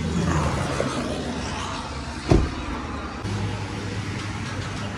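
Road traffic: a motor vehicle engine running steadily, with one sharp knock a little past halfway.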